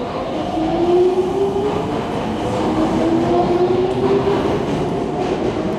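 Nankai 2000 series electric train accelerating away: its GTO-thyristor VVVF inverter motor drive whines and rises in pitch in several successive climbs, over wheels running on the rails.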